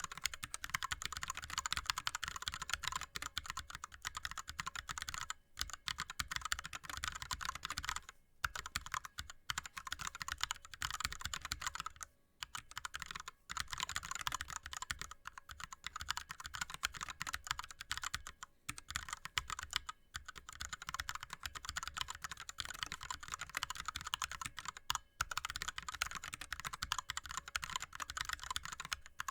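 Fast continuous touch-typing on an ErgoDox split mechanical keyboard with Cherry MX Red linear switches and DSA keycaps: a dense stream of key clacks with brief pauses every few seconds.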